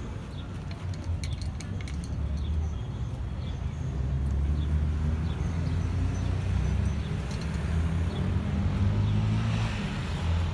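A motor vehicle's engine running nearby: a low, steady rumble that grows louder about four seconds in and eases off near the end.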